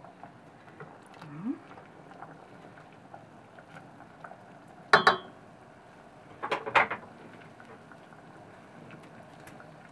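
Oyster mushrooms boiling in marinade in a stainless steel pot, a faint steady bubbling, while a wooden spatula stirs them. A sharp knock with a short metallic ring about five seconds in, then a few more knocks a second and a half later, as the spatula strikes the pot.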